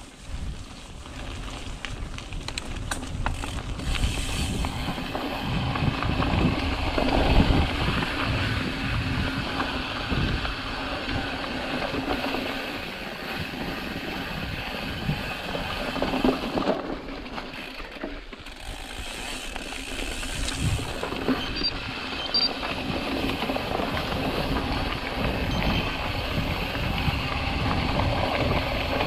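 Mountain bike ridden over a dirt and gravel trail: tyres rolling on loose ground with a steady hum, and the bike clattering and knocking over bumps.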